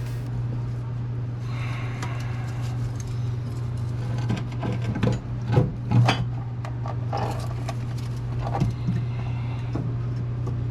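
Metal clanks and knocks from hand tools and parts during work on a skid steer's hydraulic pump assembly, bunched in the middle with a few more later, over a steady low hum.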